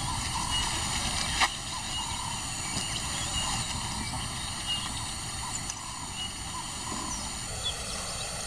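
Outdoor bush ambience: a steady hiss with short high chirps every second or so, and a single sharp click about a second and a half in.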